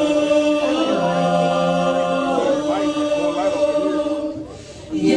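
Mixed male and female vocal ensemble singing held chords in close harmony through microphones, with a lower part entering about a second in. The voices fall away briefly a little past four seconds, then come back in full near the end.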